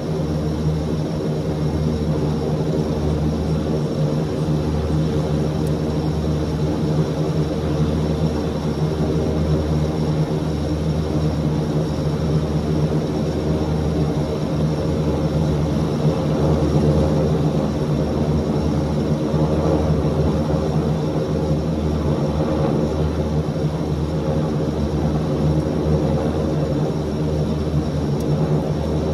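Antonov An-26's twin Ivchenko AI-24 turboprop engines and propellers running with a steady, loud drone and a slow pulsing throb underneath.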